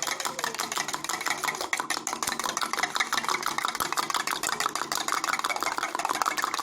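Egg mixed with chicken gravy and spices being beaten by hand in a tumbler: rapid, even clinking strokes of the utensil against the vessel.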